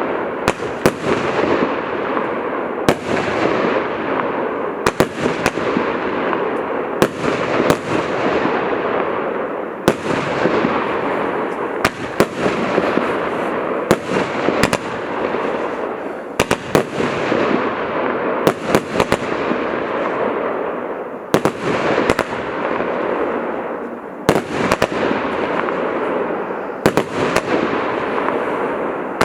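A multi-shot consumer firework cake firing a barrage: sharp bangs every second or two, groups of them close together, over continuous crackling that fades after each volley.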